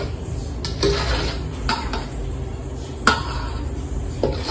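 Metal ladle stirring in a stainless steel mixing bowl, scraping and clinking against its side about five times. The loudest clink comes about three seconds in and rings briefly.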